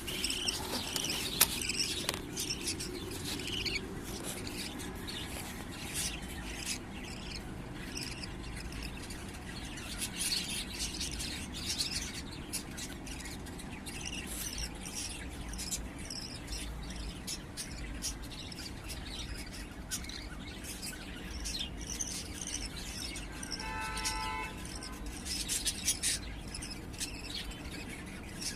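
Budgerigars chirping and chattering in many short, high calls, with one longer, evenly pitched call about three-quarters of the way through.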